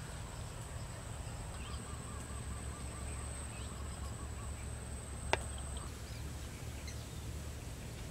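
Outdoor ambience at a pond's edge: a steady low rumble, with faint rapid chirping calls about two seconds in and a single sharp click a little past five seconds. A thin high whine stops about six seconds in.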